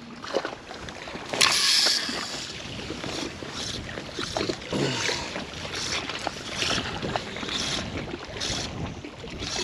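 Wind and lapping water, with footsteps scuffing on concrete about once a second and a brief louder rush of noise about a second and a half in.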